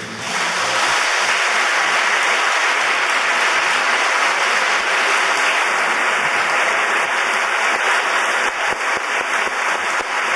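Audience applause right after a symphony orchestra's final chord: dense, steady clapping that builds up in about the first second and then holds.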